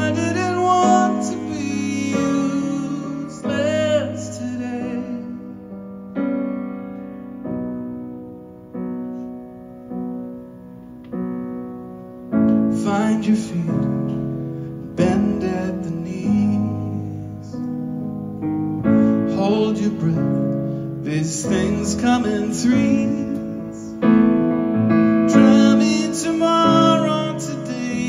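Yamaha grand piano played live, chords and melody ringing out and decaying. It goes softer in the middle, then fuller and louder from about halfway.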